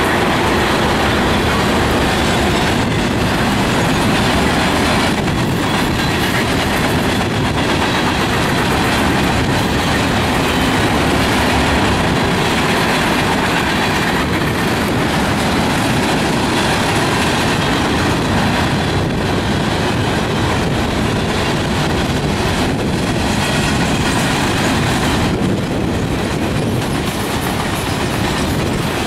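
A mixed freight train's cars rolling past steadily: the continuous noise of steel wheels on the rails, easing slightly near the end.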